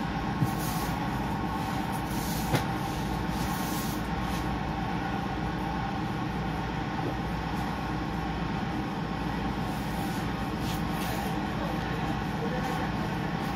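A steady mechanical hum fills the room, with denim jeans rustling and sliding on the table as they are folded. Two sharp clicks come in the first few seconds.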